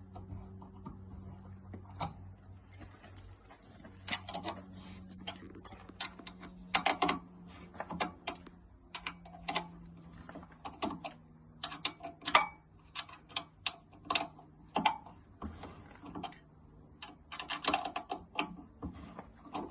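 Irregular clicks and clinks of hand tools, Allen keys and ratchet work, tightening the bolts and grub screws of a demountable flood barrier. A low steady hum runs underneath and fades about halfway through.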